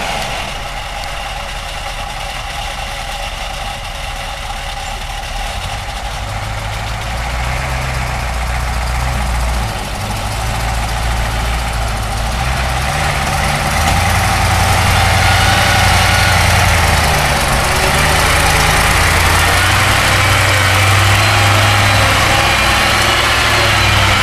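Bus engine running, its low hum shifting up and down in pitch and growing louder from about a quarter of the way in until past halfway.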